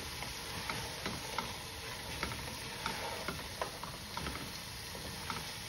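A wooden spatula stirring chunks of vegetables through a thick masala in a pot on the stove, with irregular light scrapes and taps against the pot over a steady sizzle.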